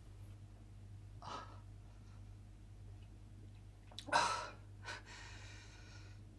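A man breathing and puffing through cream smeared over his face: a soft breath about a second in, a louder puff about four seconds in, and a short hiss near the end.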